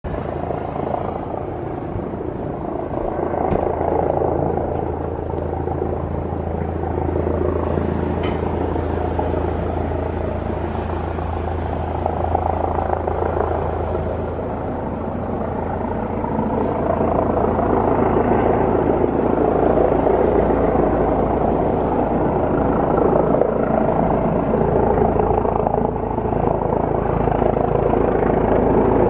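Helicopter N314PH's rotor and engine noise, a steady drone that grows louder over the second half as it comes in to land.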